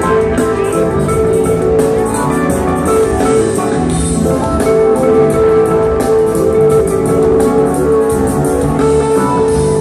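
Live jam band playing loud amplified music through a concert PA, with drums beating steadily under sustained keyboard tones.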